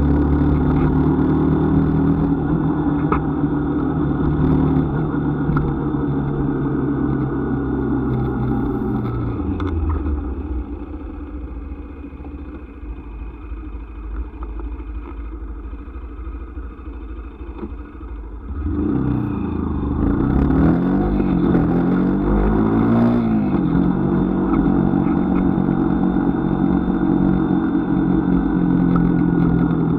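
Engine of the vehicle carrying the camera, running steadily while driving. About a third of the way in it drops to a quieter, lower note for several seconds. About two-thirds in it revs up and down in a few rising and falling sweeps, then settles back to a steady pull.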